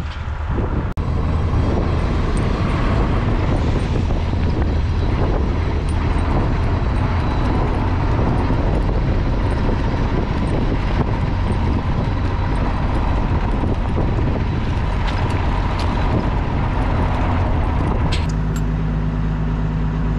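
A vehicle engine running steadily with a mechanical noise over it. There is an abrupt change about a second in, and near the end the steady engine tone shifts to a different pitch.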